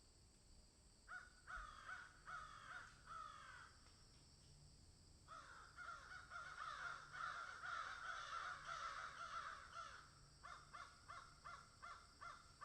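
Faint calls of crow-family birds: a series of short caws falling in pitch, a denser overlapping run of calls in the middle, and quicker short calls near the end.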